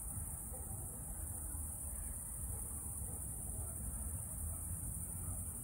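Crickets chirping in a continuous high-pitched trill, with a low steady rumble underneath.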